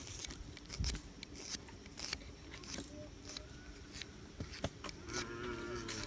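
Small knife whittling a wooden stick, an irregular string of short scraping cuts as shavings come off. Near the end a drawn-out, wavering call sounds.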